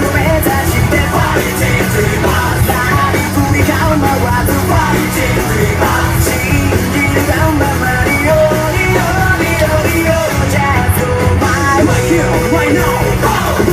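Loud rock music with a singing voice, band instruments playing steadily, with a held sung note near the end.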